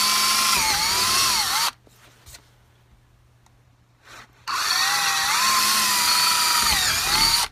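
Handheld power drill boring through the wall of a plastic pipe with a twist bit. There are two runs of motor whine separated by a pause of about three seconds, the pitch dipping and rising with trigger and load.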